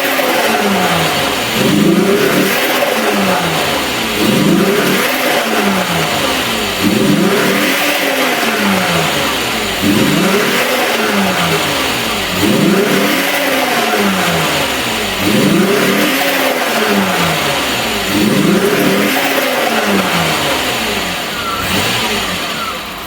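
Alfa Romeo 164's 2.0 V6 Turbo Busso engine being revved up and let fall back again and again, about every two seconds, each rev a quick rise in pitch and a slower fall. It runs badly and misfires after a crank-no-start repair, with a faulty ignition coil that was losing spark.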